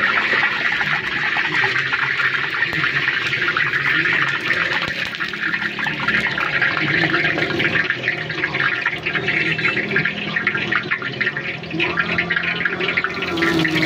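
Hot oil in a large karahi sizzling and crackling as puris deep-fry, a steady dense sizzle full of fine pops.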